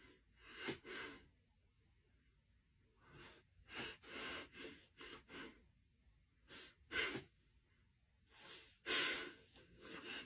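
Faint breaths and sniffs from a man and a dog pressed nose to nose, in short noisy puffs that come in about five clusters with quiet between them.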